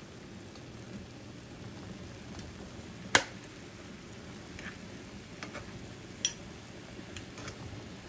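Sausages sizzling quietly in a little juice in a frying pan, with a metal spatula and fork clicking against the pan as they are turned; the sharpest click comes about three seconds in, another about six seconds in.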